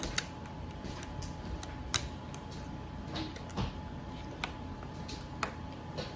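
Plastic Lego Technic beams and plates clicking and knocking together as they are handled and pressed into place by hand: a handful of separate sharp clicks, the loudest about two seconds in.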